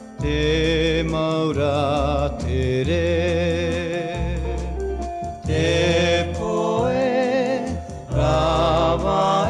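Music: a recorded Tahitian popular song, with a wavering melody line in phrases over steady bass notes.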